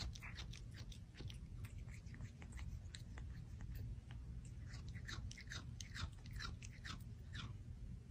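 Cat licking and nibbling at its own paw while grooming: a faint run of quick, wet clicking and smacking sounds, several a second.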